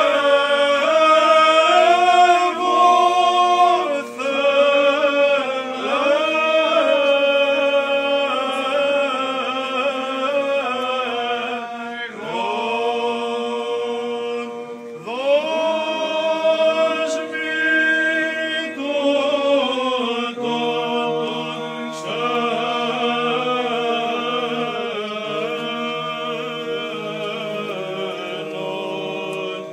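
Several male chanters singing Byzantine chant a cappella, with long held notes that wind up and down in ornaments and short breaks for breath. A low steady held note comes in beneath the melody about two-thirds of the way through.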